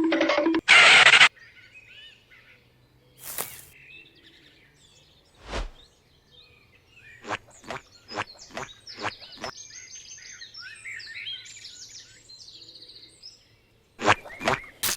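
Birds chirping and trilling over a faint outdoor ambience, broken by a series of short clicks and knocks. A loud burst of noise ends about a second in, and louder hits start near the end.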